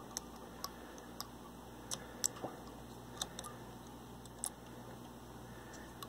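Faint, irregular small clicks and ticks of a hobby knife blade picking at a plastic XT60 connector and the wires at its back, about a dozen in all, the sharpest a little past two seconds in and again past four seconds.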